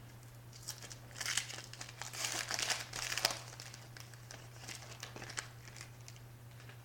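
A 2014 Rookies & Stars football card pack's wrapper being torn open and crinkled, busiest for about three seconds from near the start, then lighter crinkles as the cards are handled. A low steady hum runs underneath.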